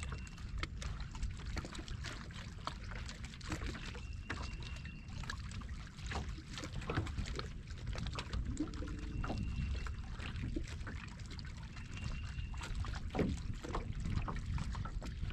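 Small waves lapping and splashing against a bass boat's hull, with a steady low wind rumble on the microphone. A faint high whine comes and goes briefly a few times.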